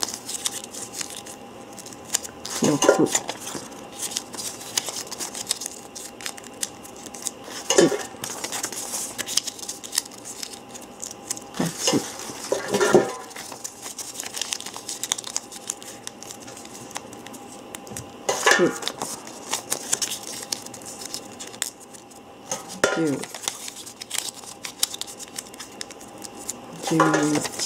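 Small paper lottery slips being folded and creased by hand, with a short rustle and crackle of paper about every five seconds.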